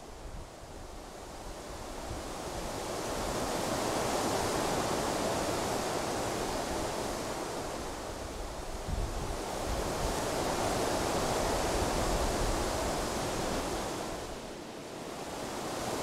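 Strong winter wind blowing in gusts, swelling and easing twice, with low buffeting of the wind on the microphone.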